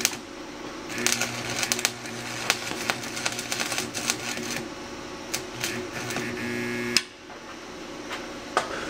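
Small 110-volt stick welder's arc crackling and spitting against an exhaust pipe over the welder's steady buzz, then cutting off abruptly about seven seconds in.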